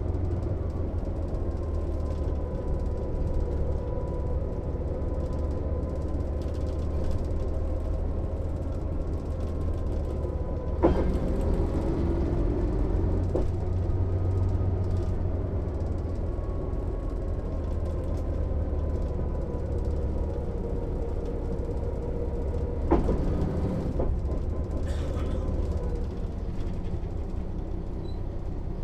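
Mercedes-Benz O 407 city bus under way, its diesel engine and drivetrain running with a steady low drone and a faint whine that drifts slowly up and down in pitch. Two sharp knocks, about eleven seconds in and again near twenty-three seconds.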